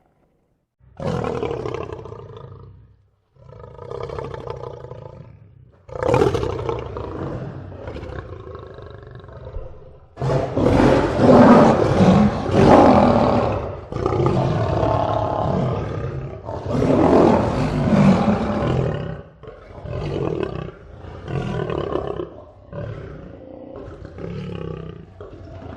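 Lion roaring in a bout. Three separate roars come first, then a long, loud stretch of roaring about ten seconds in, then a string of shorter grunting calls near the end.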